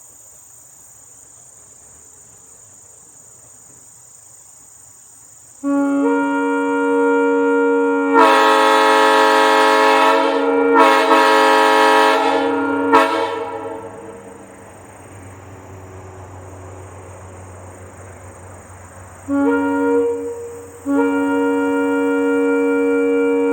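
Three-chime locomotive air horn, blown in long steady chord blasts. The first blast starts about six seconds in, swells louder after a couple of seconds and dies away after about eight. A short toot comes near 19 s, then another long blast starts near the end.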